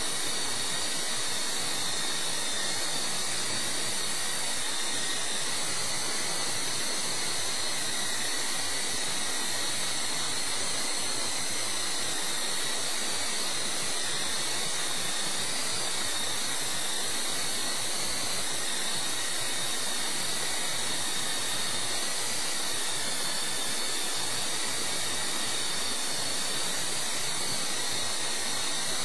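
Esky Co-Comanche coaxial RC helicopter's small electric motors and rotors whirring steadily in flight. A high, slightly wavering whine sits over an even hiss.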